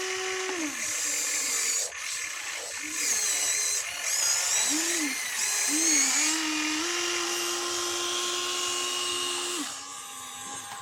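Small electric motors of a toy RC construction vehicle whining, the pitch rising and falling in short arcs as they start, speed up and stop several times, then holding steady before dropping off near the end.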